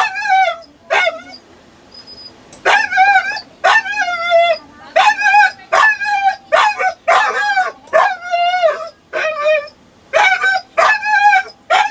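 A dog crying in a rapid series of high, short yelps and whines, over a dozen of them, some rising then falling in pitch, with a pause about a second in.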